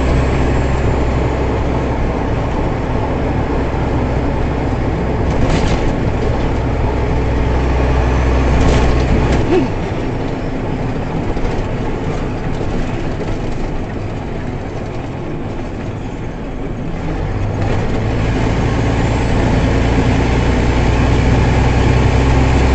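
Steady low rumble of engine and road noise inside a moving vehicle's cabin at highway speed. The deep drone falls away for several seconds about midway, then comes back.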